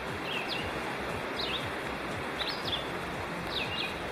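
Steady rush of a mountain river, with a bird giving short high chirps about once a second and a thin steady high tone.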